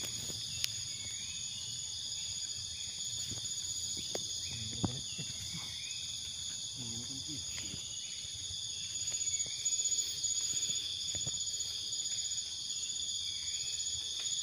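Steady chorus of insects buzzing in several high bands without a break. Two short sharp clicks stand out, and a louder rustle comes about nine seconds in.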